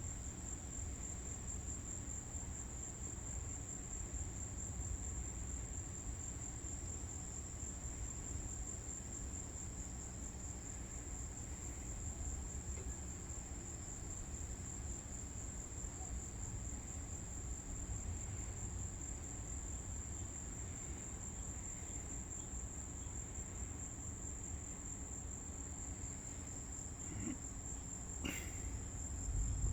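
Insects trilling in a steady high-pitched chorus, over a low steady rumble, with one brief sharp click near the end.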